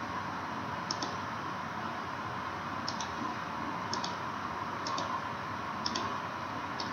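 Computer mouse button clicking six times, roughly once a second, each click a quick press and release, over a steady hiss.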